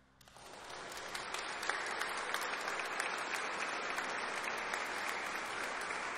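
Audience applause: clapping starts right away and builds within about a second into steady, dense applause.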